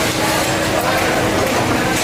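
Workshop noise with a steady machine hum running under dense clatter.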